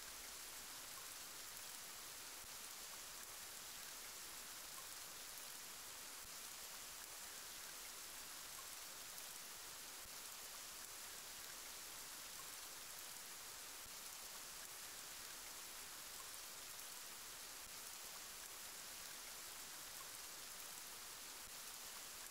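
Faint, steady rain: an even hiss that does not change.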